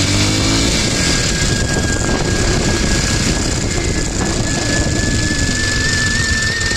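A steady high-pitched squeal, creeping slightly higher in pitch, over the rumble of a moving vehicle; the owner suspects brake squeal.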